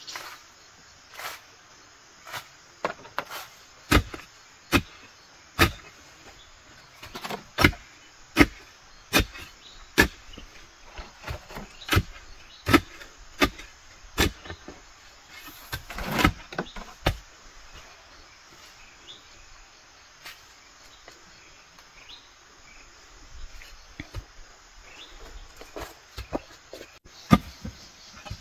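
Long-handled digging tool chopping into soil, one sharp strike after another, roughly once a second in the first half and more spaced out later. Insects chirr steadily throughout.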